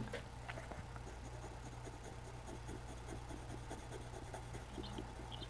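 Dull black coloured pencil scratching on drawing paper in short, repeated colouring strokes, faint, over a steady low hum.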